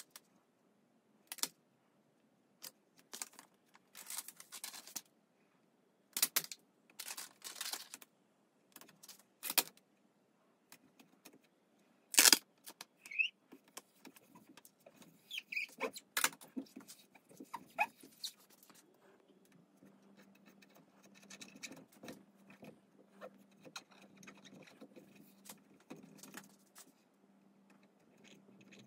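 Plastic facing sheet and its backing crinkling and rustling as a clear protective facing is peeled and laid onto the face of a willow cricket bat, with one sharp click about twelve seconds in and a few short squeaks. In the last third, softer, continuous rubbing as hands smooth the film down, over a faint low hum.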